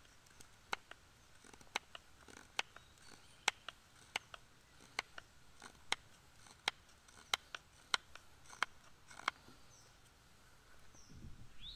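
Knife carving notches into a wooden stick: a series of sharp clicks, one with each cut, about one every half second to second, stopping about nine seconds in.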